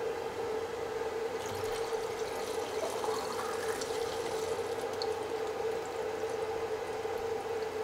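Liquid developer poured steadily from a plastic measuring jug into the light-trap funnel of a film developing tank, filling the tank with C-41 colour developer.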